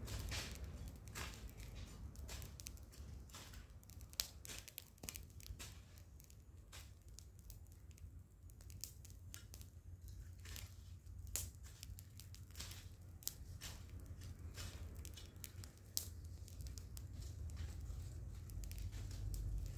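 Faint weeding in a garden bed: a hoe working the soil and plants being pulled and torn up, heard as scattered irregular crackles and tearing rustles over a steady low rumble.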